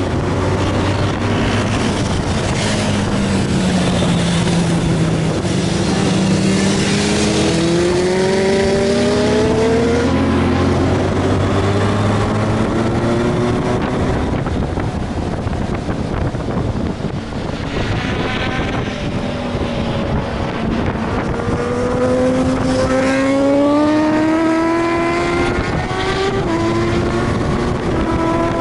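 Honda Gold Wing GL1500's flat-six engine under way at track speed, its note dipping and then climbing in two long rises as the bike accelerates, with a drop in pitch near the end like a gear change. A steady wind rush on the helmet-mounted microphone runs under it.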